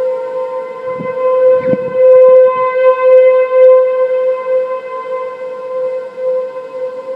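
Tornado warning siren sounding for a test: a steady wail held at one pitch, growing louder about two seconds in and easing off toward the end.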